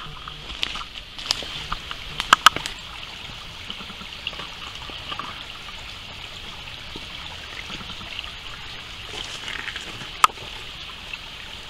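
Shallow, rocky woodland creek trickling steadily over stones. A few sharp snaps and clicks cut through it, most in a cluster about two seconds in and one more near the end.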